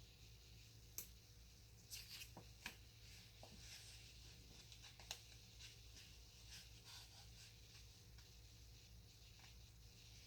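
Near silence: faint rustling and a few light clicks of paper and small tools being handled.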